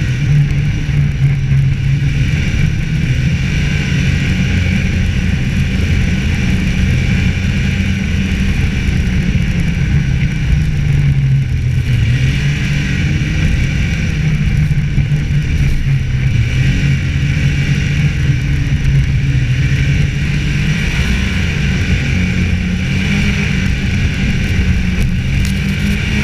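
Snowmobile engine running at steady trail speed, heard from on board the moving sled, its pitch shifting slightly now and then as the throttle changes, with track and wind noise.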